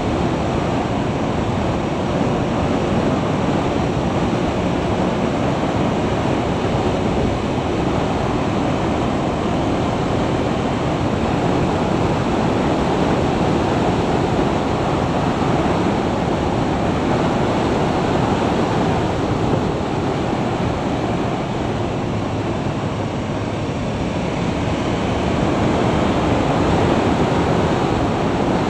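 Steady wind rush on an action camera's microphone, from riding at about 50 to 60 mph, with road and engine noise blended into one even noise. It gets a little louder near the end as the speed climbs.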